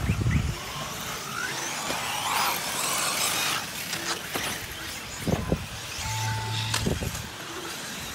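Off-road RC race cars running on a dirt track, with a motor whine that rises and falls as one passes close, about two to three seconds in. A few low thumps are also heard, and a short steady tone comes near the end.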